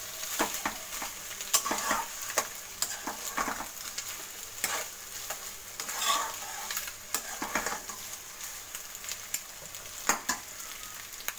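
Metal spatula stirring and scraping a grated potato and egg mixture in a non-stick kadai, with irregular clicks and scrapes against the pan over a steady frying sizzle.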